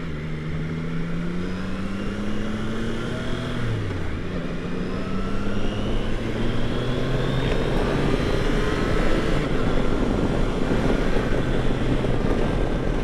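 Triumph Tiger Sport 660's three-cylinder engine pulling under acceleration on the freeway, with one gear change about four seconds in, after which the engine note climbs again. Wind rush over the helmet grows louder as speed builds.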